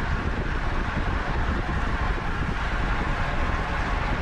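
Steady wind rushing over the microphone while cycling at race speed, with road and tyre noise underneath.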